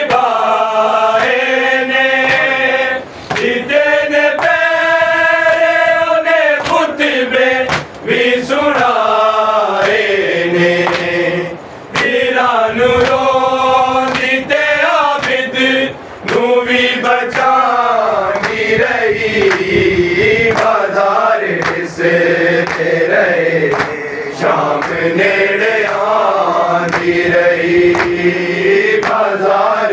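A group of men chanting a noha, a Shia mourning lament, with the slaps of hands striking chests (matam) going on throughout.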